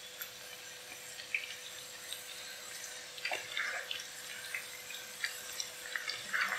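Batter-coated chicken strips deep-frying in hot oil: a steady sizzle with scattered pops and crackles.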